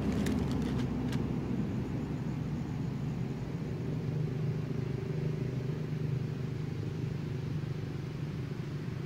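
Steady low rumble of an engine running, with a few faint clicks in the first second.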